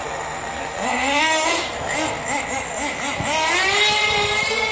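Small nitro-fuelled engine of an RC car revving as the car accelerates away, a high whine that climbs about a second in, falls back, then climbs again after about three seconds and holds high near the end.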